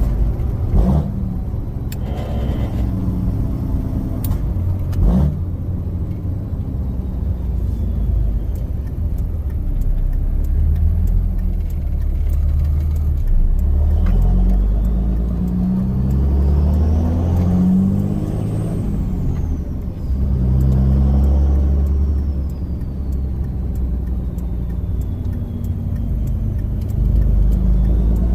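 Turbocharged 5.9 Cummins diesel in a Ram 3500 pulling through the gears, its deep engine note changing in steps. A turbo whistle climbs steeply from about halfway through, peaks, then falls slowly away. A few sharp clicks sound in the first few seconds.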